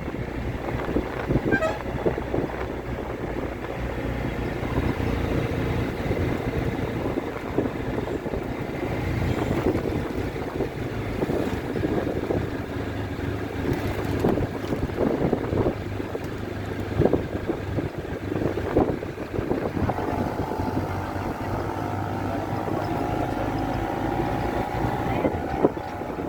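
Wind buffeting the microphone over a steady low drone. A held tone comes in about two-thirds of the way through.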